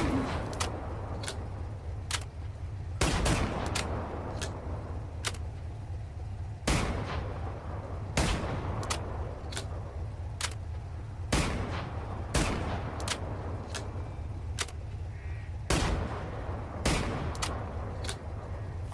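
Double-barrel shotgun firing again and again, a loud shot every few seconds, some in quick pairs, with fainter sharp cracks in between. A steady low rumble runs underneath.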